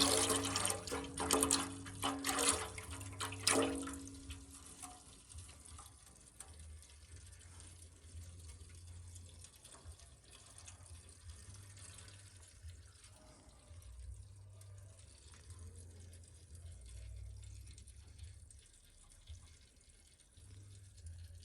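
Used engine oil draining from the BMW N63B44 V8's sump into a drain pan, as a faint steady flow and drips.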